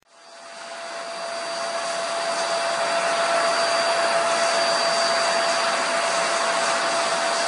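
Vacuum cleaner switched on, its motor spinning up over about two seconds to a steady rush of air with a constant whine.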